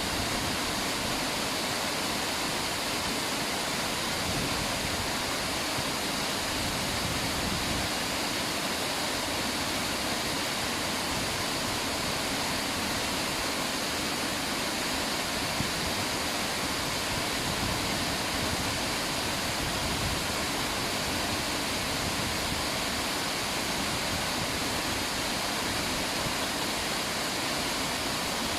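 River water rushing steadily over rocks: a constant, even rush.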